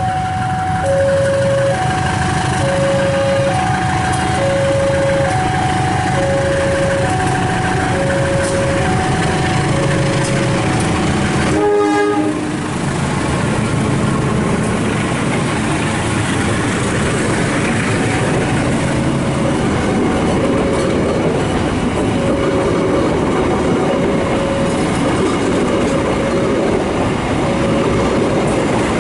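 An electronic railway level-crossing warning alarm repeats a two-note tone about once a second. About twelve seconds in, after a break, a train runs past with a steady rumble of wheels on the rails, and the alarm's tone sounds faintly again under it.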